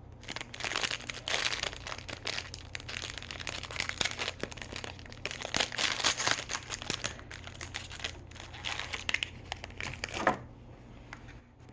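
Packaging crinkling and crackling in the hands as a small toy box is unwrapped and opened, with many quick crackles that die down near the end.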